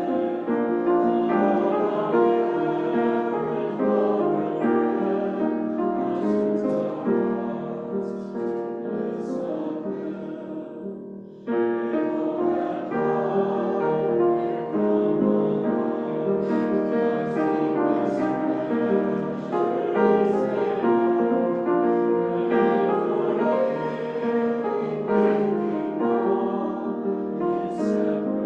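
A congregation singing a hymn together with piano accompaniment, with a brief lull about eleven seconds in before the singing resumes.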